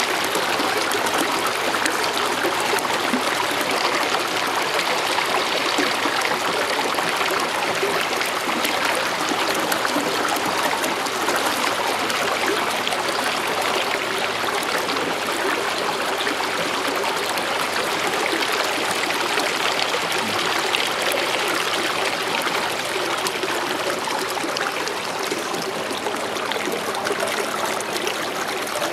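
Steady rushing and trickling of water along the hull of an aluminium canoe as it moves through calm water.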